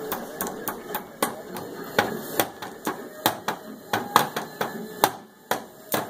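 Child's toy drum kit hit with a drumstick in uneven, sharp taps, about three a second.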